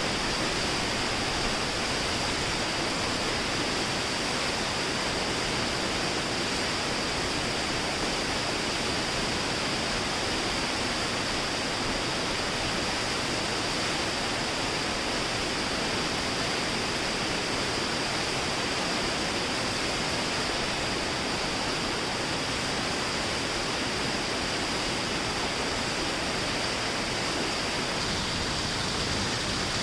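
Waterfall on the Kunool Nala: a steady, unbroken rush of falling water.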